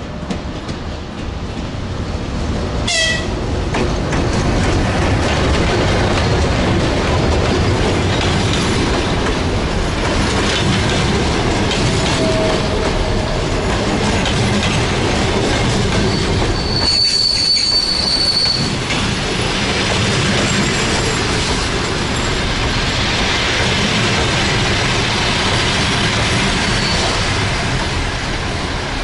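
Passenger train hauled by an EP1 electric locomotive pulling into a station, with a steady rumble of wheels on rails. A brief high squeal comes about three seconds in, and a longer one about seventeen seconds in.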